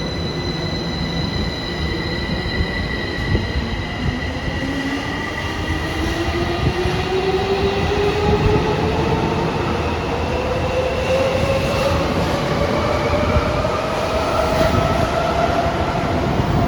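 Tokyo Metro 05 series train's Toshiba IGBT-VVVF inverter and permanent-magnet synchronous motors whining as the train accelerates from a station, the whine rising steadily in pitch over the rumble of wheels on rail.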